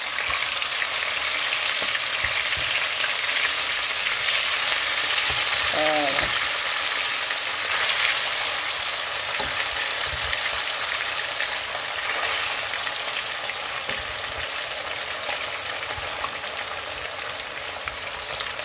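Seasoned pieces of capitaine fish sizzling steadily in hot oil in a nonstick wok as more pieces are laid in with a slotted spatula; the frying hiss eases a little near the end.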